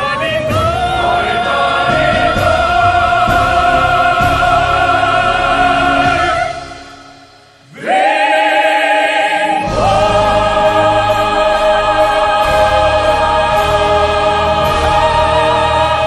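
A choir and soloists singing long, held notes with orchestral accompaniment in the closing bars of a song. About six and a half seconds in the music drops away briefly. The voices come back in on a rising note, and the low accompaniment rejoins about two seconds later.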